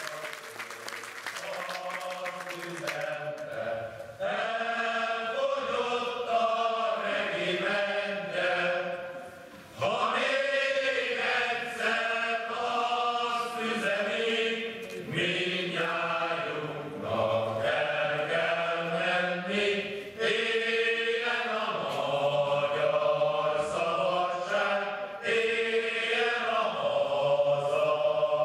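A group of voices singing a Hungarian folk song unaccompanied, in unison, phrase by phrase with a short break about ten seconds in. The tail of applause fades out in the first couple of seconds.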